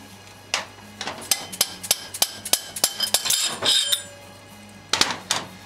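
Sharp metallic knocks and clinks, about three a second, turning into a scraping clatter, as a cylinder barrel is worked loose and pulled off its studs on a BMW R100RS airhead boxer engine; two more knocks come near the end.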